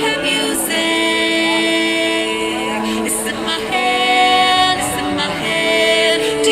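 Live street band playing a song, a voice holding long sung notes over the instruments.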